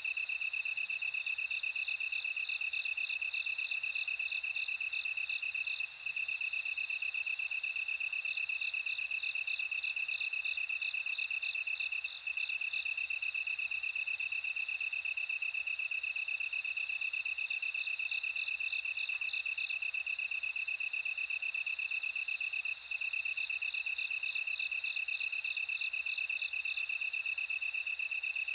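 Crickets singing, bell crickets among them. A steady, rapidly pulsing trill runs throughout, and higher ringing phrases repeat every second or two, mainly in the first several seconds and again near the end.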